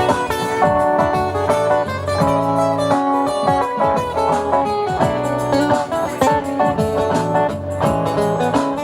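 Acoustic guitar playing an instrumental, with quick plucked notes over sustained low bass notes.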